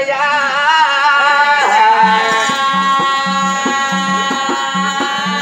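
Oggu katha folk singing: voices hold a long wavering sung line. From about two seconds in, a drum beats a steady rhythm under it.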